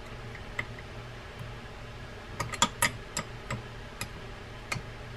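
Light metal clicks and taps as a reel wrench is fitted over the handle nut on a big saltwater trolling reel's handle shaft, about eight sharp clicks, most of them bunched in the middle.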